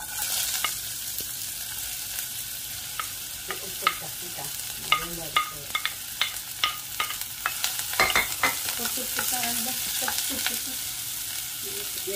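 Chopped onions dropped into hot coconut oil in a non-stick pan, starting a sudden steady sizzle. A wooden spatula scrapes and knocks against the pan as the onions are stirred, many short clicks from about three seconds in until near the end.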